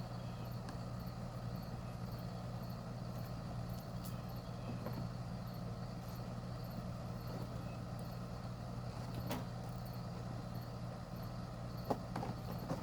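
Steady low mechanical hum, with a few faint clicks or taps now and then.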